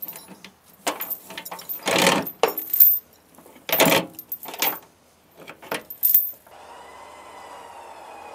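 Steel rigging hardware clinking and rattling in a string of sharp metallic clatters as it is hooked onto an old truck's frame. About six and a half seconds in, it gives way to the steady whine of a Harbor Freight Badlands Apex 12,000 lb electric winch pulling under load, its pitch slowly sinking.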